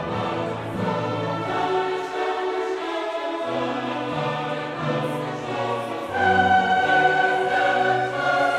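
Background music: choral, operatic-sounding singing with orchestra, swelling louder about six seconds in.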